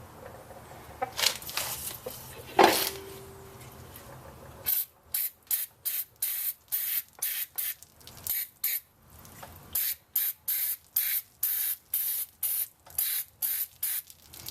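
Aerosol can of brake parts cleaner sprayed in many short hissing bursts, about three a second with a brief pause midway, to clean the brake caliper's rubber slide-pin boots. A few handling knocks come before the spraying starts.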